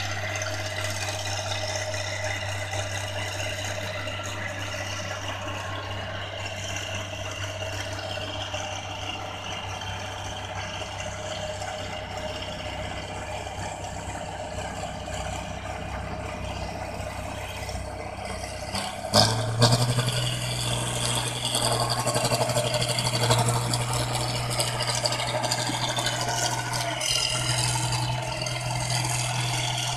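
New Holland combine harvester's diesel engine running steadily under the rattle of its machinery. About two-thirds of the way through there is a sharp click, and the engine note steps up higher and louder.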